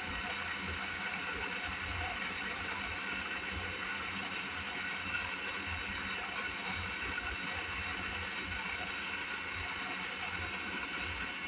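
Home-built micro lathe running steadily on its 24-volt DC scooter motor under PWM speed control.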